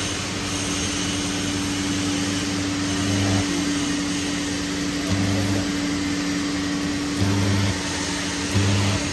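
TIG welding arc burning from a water-cooled WP-18 torch on steel, a steady hiss over a constant electrical hum from the welding set. A louder low buzz swells in briefly four times, about three, five, seven and eight and a half seconds in. It is an arc-strike test of the newly fitted torch, and the arc strikes and holds.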